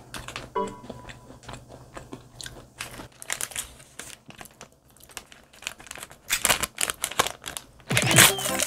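Close-up crunching and chewing of a crunchy chocolate-coated snack, with the plastic wrapper crinkling. It gets louder near the end.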